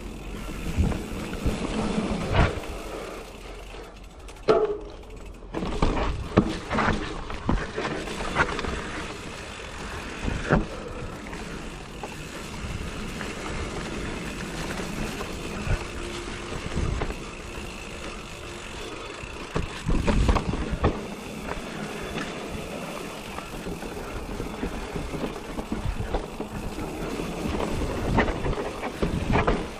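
2020 Giant Reign E electric mountain bike ridden over a dirt trail: a constant rolling noise with frequent irregular knocks and rattles as the bike hits bumps, in clusters every few seconds.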